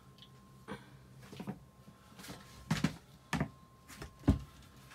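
Several dull knocks and thumps at irregular intervals, the loudest about four seconds in, over a faint steady tone.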